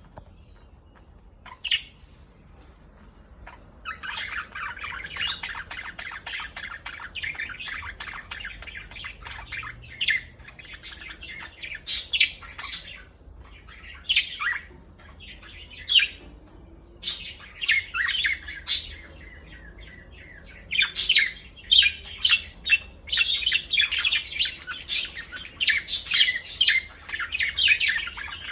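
Pet budgerigars chattering: a continuous warbling chatter with frequent sharp chirps and squawks. After a few lone calls it sets in a few seconds in and grows busier and louder in the second half.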